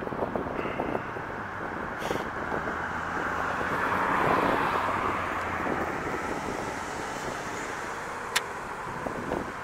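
Road traffic going by, a vehicle swelling louder about four seconds in and fading away. A single sharp click near the end.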